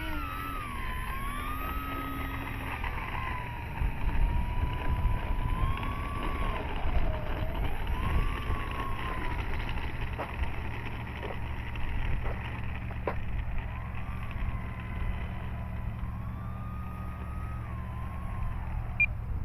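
Electric motor and propeller of an FMS Cessna 182 Skylane RC model whining while it taxis, the pitch rising and falling slowly with the throttle. Wind rumbles on the microphone underneath.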